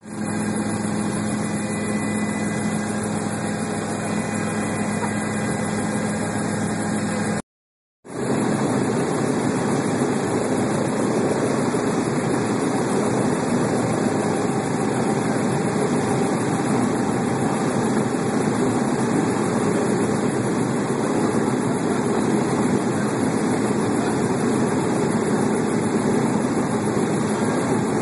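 Helicopter in flight heard from inside the cabin: a steady, loud drone of turbine engine and rotor with a strong low hum. It cuts out for a moment about seven and a half seconds in, then resumes slightly louder and rougher.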